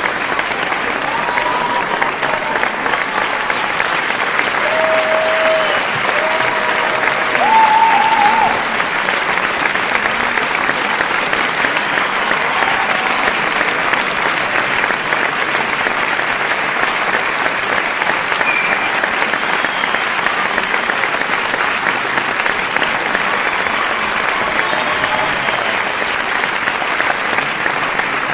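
Large crowd applauding, many hands clapping in a dense, steady wash with no breaks.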